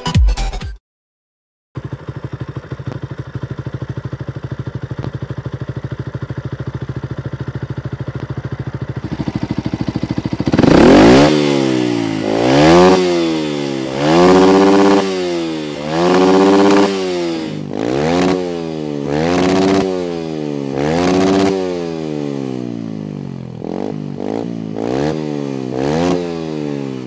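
Beta RR 125 LC motorcycle's 125 cc single-cylinder engine, its silencer without the dB-killer insert, idling steadily and then revved in a series of throttle blips that each rise and fall, with several quicker, shorter blips near the end.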